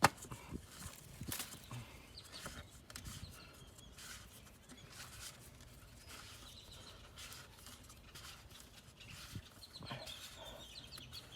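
Hands fitting a new cartridge filter into its filter housing: a sharp click right at the start, then scattered light knocks and rustles. Faint animal calls in the background, a few short chirps near the end.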